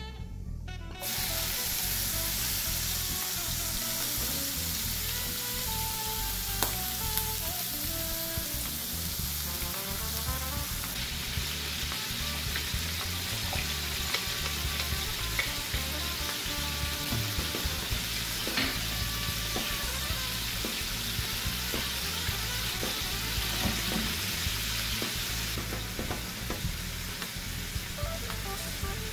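Squid tentacles sizzling in hot oil in a frying pan, starting abruptly about a second in as they go into the pan, with a wooden spatula stirring and scraping now and then. Garlic and mussels later fry in the same pan. Faint music plays underneath.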